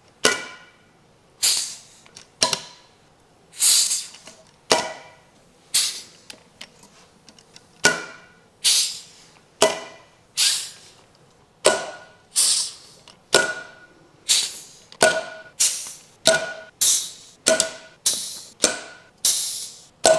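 Air-powered C-frame valve spring compressor cycling as valve springs come off a cylinder head: a sharp blast of air with a trailing hiss about once a second, some in quick pairs, around twenty in all.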